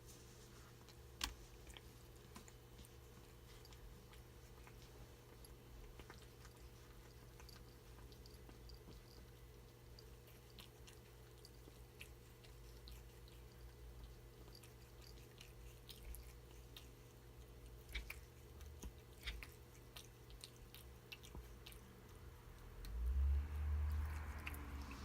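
Quiet room tone: a steady low hum with scattered faint small clicks and rustles, and a brief louder low-pitched rumble near the end.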